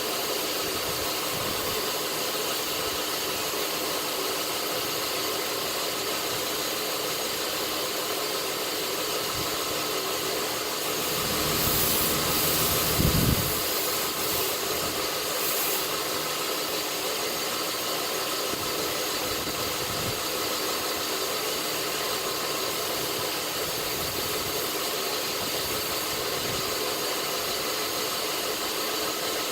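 North Ridge Tool belt grinder running steadily with a constant motor hum and hiss. About halfway through it grows louder for a few seconds, with short high-pitched bursts and a brief low thump.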